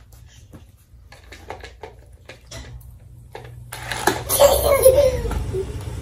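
A young child laughing and giggling about four seconds in, the loudest sound here. Before it, faint scattered taps and clicks.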